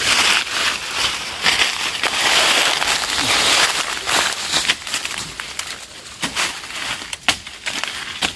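Footsteps crunching and crackling through dry fallen leaves and brushing through undergrowth, with a single sharp crack near the end.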